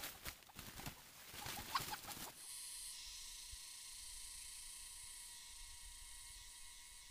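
Rustling and footsteps of a person pushing through leafy forest undergrowth, with a brief chirp partway through. After about two seconds this gives way to a steady high hiss carrying a faint steady tone.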